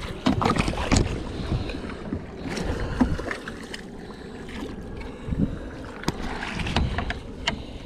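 A hooked bass being reeled in and netted beside a boat: rod and spinning-reel handling clicks, knocks against the hull and splashing at the water's surface, over a low rumble of wind on the microphone.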